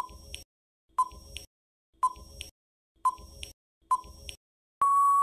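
Quiz countdown-timer sound effect: five short beeps about a second apart, each followed by a faint click, then one long steady beep near the end as the time to answer runs out.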